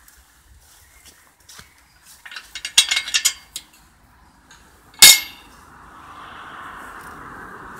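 A quick clatter of sharp clicks and clinks close to the microphone, then one loud sharp knock about five seconds in. After the knock a car comes along the lane, its tyre and engine noise rising steadily as it passes.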